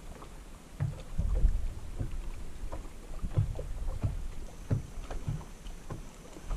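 Small waves lapping and slapping irregularly against the hull of a small fishing boat, over a low rumble of wind on the microphone.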